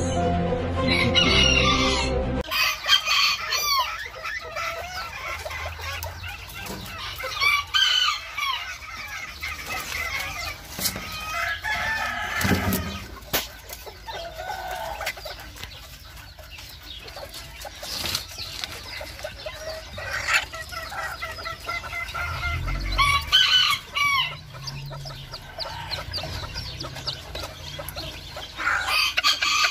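Miniature chickens calling: repeated clucking with roosters crowing, in many short calls. Music plays under the first couple of seconds.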